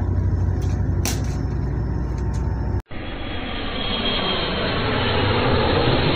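Steady low drone of a ship's engine under wind and sea noise, with a few light clicks. About three seconds in it cuts off abruptly, and a duller rushing noise of wind and water takes over.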